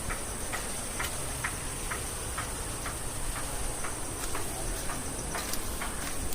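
Steady high-pitched insect drone with a light tick repeating about twice a second.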